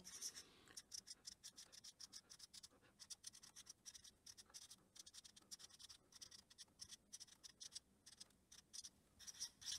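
Felt-tip marker writing numerals on a sheet of paper: faint, quick scratching strokes, several a second.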